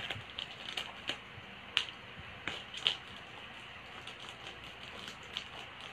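Plastic packaging crinkling and rustling in the hands, with scattered sharp crackles and clicks, the loudest a little under two seconds in and again about a second later.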